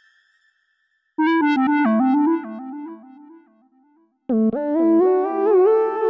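Yamaha Montage M8X synthesizer played on a keyboard patch: about a second in, a short run of notes that fades away, then after a brief pause a fuller phrase of notes and chords begins.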